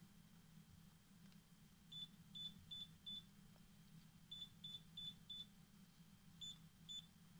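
Candy Rapido washing machine control panel beeping as its buttons are pressed to step through the programmes: ten short, high beeps in quick runs of four, four and two.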